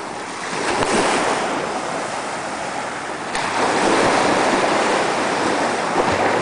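Small waves breaking and washing up the sand at the water's edge: a surge about a second in and a longer one from about three and a half seconds in.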